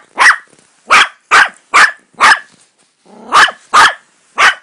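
A Yorkie-Maltese puppy barking: about eight short, high-pitched yaps, in two quick runs with a brief pause just past the middle.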